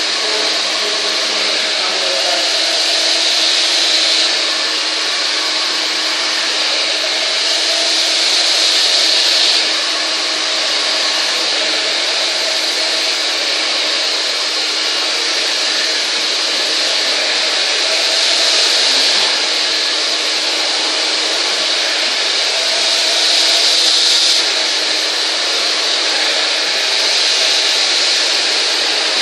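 Hand-held hair dryer blowing continuously over long hair: a steady rush of air over a constant motor hum, swelling and easing every few seconds as the dryer is moved about the head.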